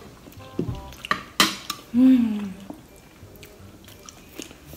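Metal cutlery clinking against ceramic plates a few times during a meal, then about two seconds in a short hum from a person, falling in pitch.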